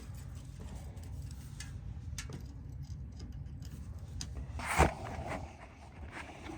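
Workshop handling noise: scattered light clicks and taps over a low steady hum, with one sharp knock just under five seconds in.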